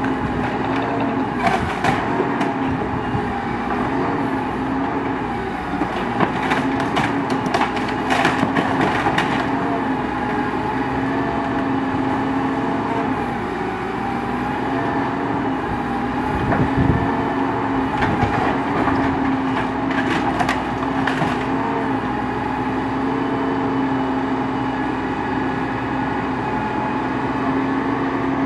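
Truck-mounted material handler (grapple loader) working with its engine running steadily, with bursts of cracking and splintering as the grapple grabs and crushes a pile of wood and household debris, a few times over.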